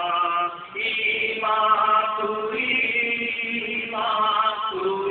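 A voice chanting a verse in long held notes, moving to a new pitch about every second, with a short break about three-quarters of a second in.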